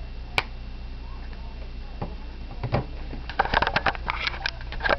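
Handling noise of a mobile phone: one sharp click, then after a pause a rapid flurry of small clicks and rattles lasting about two seconds.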